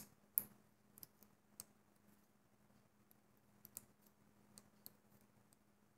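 Near silence with faint, scattered small clicks and taps from rubber bands and a plastic loom being handled as the bands are pulled over, the strongest about half a second in.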